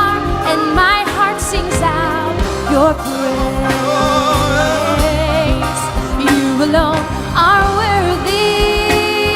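Christian worship song: a voice singing long, wavering held notes and sliding runs over sustained accompaniment.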